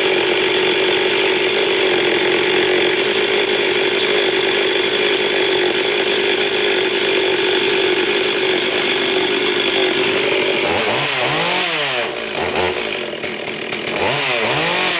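Stihl MS 440, a 70 cc two-stroke chainsaw, running steadily at high speed. From about eleven seconds in, its engine revs up and falls back twice.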